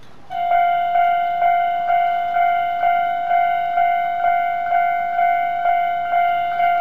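Japanese electronic level-crossing alarm bell switching on about a third of a second in and ringing its standard repeating 'kan-kan' tone, about two strikes a second, each ringing out before the next. It signals that a train is approaching and the crossing is closing.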